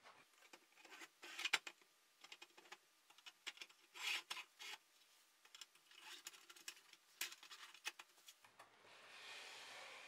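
Hard drives and a circuit board on plastic sliders being pushed into the rails of a 3D-printed plastic case: faint scraping and rubbing with scattered clicks and knocks, and a longer smooth slide near the end.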